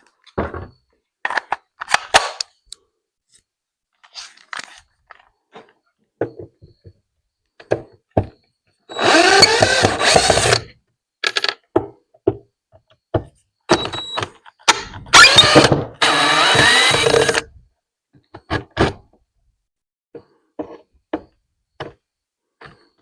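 A power drill runs twice for about two seconds each time, its motor pitch rising, among scattered clicks and knocks of parts being handled.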